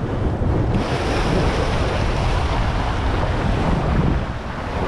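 Sea surf washing against the shore, with wind blowing across the microphone: a steady, loud rushing noise.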